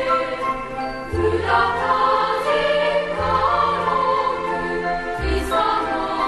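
Background music: a choir singing held chords over low bass notes that change about every two seconds.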